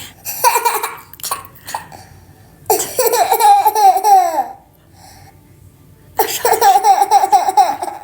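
A young child laughing in three bouts of rapid, high-pitched pulses, the long middle bout sliding down in pitch as it ends.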